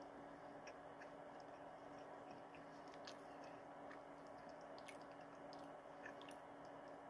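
Faint chewing of a soft sponge cupcake with closed mouth: small scattered wet mouth clicks over a steady low room hum.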